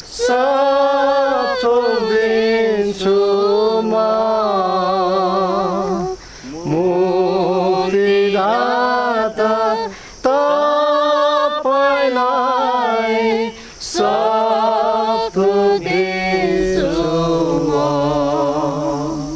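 Unaccompanied voice singing slow phrases of long held, wavering notes, with short breaks between phrases about six, ten and fourteen seconds in.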